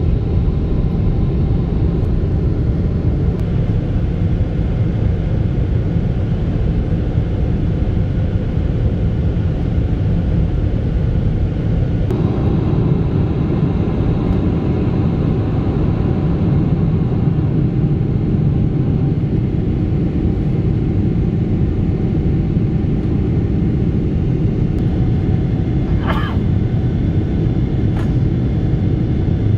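Cabin noise of a Boeing 777-300ER climbing after takeoff: its GE90-115B engines running at climb thrust with air rushing past the fuselage, a steady low rumble. Near the end a brief higher sound cuts in over it.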